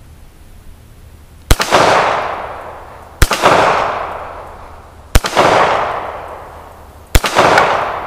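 Stallard Arms JS-9 9mm pistol firing four shots of steel-cased full metal jacket ammunition, about two seconds apart. Each shot is a sharp crack followed by a long, fading echo.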